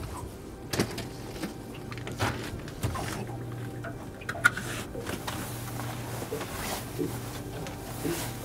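Small boat's outboard motor running at low idle with a steady low hum, while gear knocks and clicks against the aluminium hull, the sharpest knock about four and a half seconds in.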